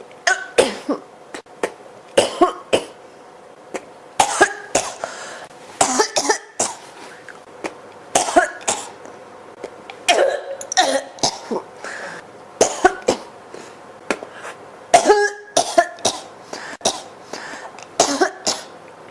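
A person in a coughing fit, coughing again and again: short, sharp coughs in clusters of two or three, a new cluster about every two seconds.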